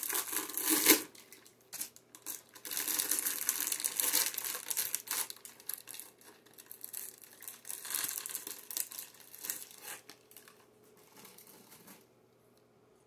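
Wrapping being crumpled and crinkled in irregular spells, loudest in the first few seconds, then dying away near the end.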